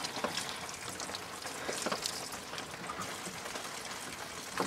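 Engine coolant dripping and spattering out of the disconnected lower radiator hose connection in a pattering of irregular drops.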